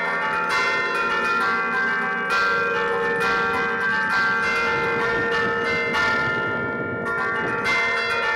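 Church bells played from a wooden baton keyboard in the belfry (Bergamasque "suono a tastiera"): the clappers strike the bells in a melodic pattern about twice a second, each strike ringing on over the others. There is a brief lull in the strikes about six seconds in before they pick up again.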